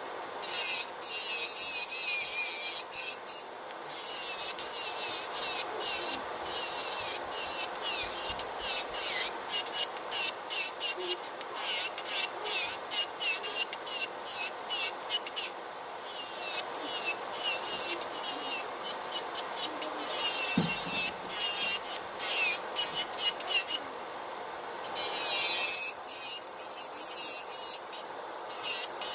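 Electric nail drill bit filing a fingernail in rapid, repeated scratchy strokes, over the steady hiss of a nail dust collector's fan.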